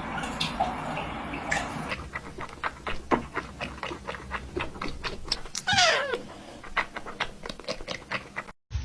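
A cat meows once, a falling call about six seconds in, amid a run of quick sharp clicks. The sound cuts off suddenly near the end.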